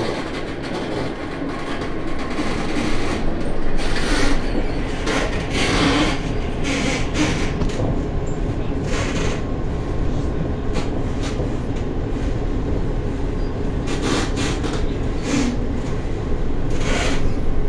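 Tram interior: a steady rumble of motors and wheels on the rails that builds over the first few seconds as it pulls away, with short rattles and clacks here and there.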